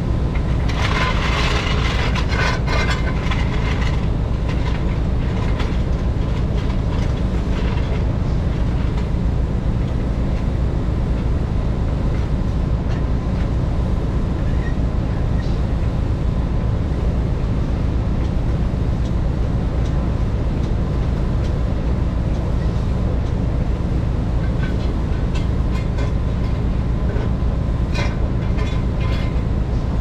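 Vehicle road noise heard from inside the cab while driving: a steady low rumble of engine and tyres, with clusters of light rattles and clicks about a second in and again near the end.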